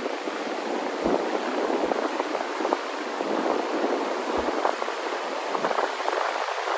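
Wind rushing steadily over the microphone, with a few brief low buffets.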